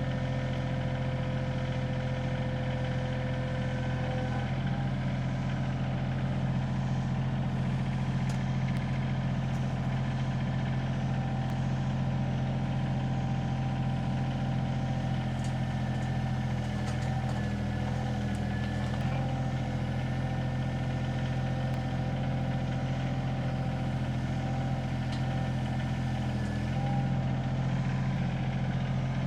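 Excavator's diesel engine running steadily while the machine sets a beam, with a faint steady whine above the engine hum.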